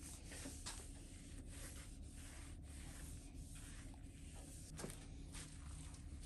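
Faint, irregular rubbing strokes of an alcohol wipe over the underside of a carbon fiber spoiler, cleaning the surface before 3M VHB tape is applied.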